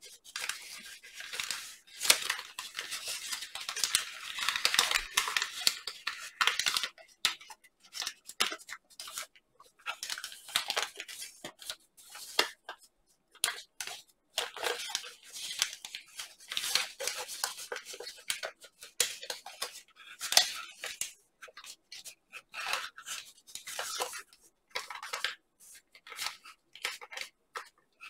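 A sheet of origami paper crinkling and rustling in the hands as it is folded, creased and shaped, in irregular bursts of crisp crackles with short pauses between them.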